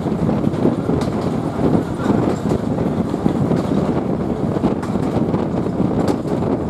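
Steam-hauled auto coach running along the line: a steady rumble of wheels on rail, with a few faint clicks over the rail joints.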